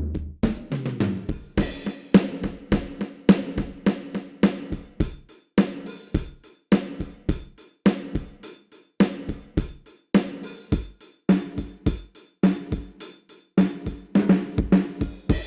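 Sampled drum kit from the Ketron SD90 SF2 soundfont playing a steady groove of bass drum, snare, hi-hat and cymbals. It opens with a quick run of hits falling in pitch, like a tom fill.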